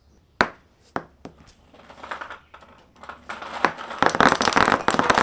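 Plastic ping pong balls striking a tabletop: a few single sharp ticks, then from about four seconds in a dense, growing clatter as many balls rain down and bounce.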